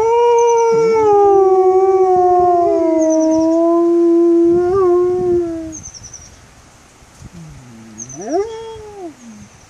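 A wolf howling: one long, loud howl held for nearly six seconds, sinking slowly in pitch, then after a short pause a quieter howl that rises and falls again, about eight seconds in.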